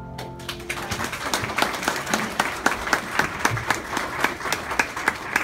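The last piano notes die away, then applause starts about half a second in: many hands clapping.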